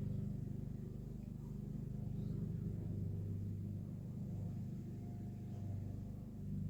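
Steady low hum with an even, unchanging pitch.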